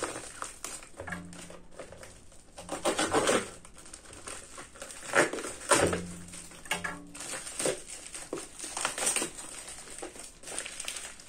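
Plastic packaging wrap crinkling and tearing as a small parcel is unwrapped by hand, in irregular bursts of rustling.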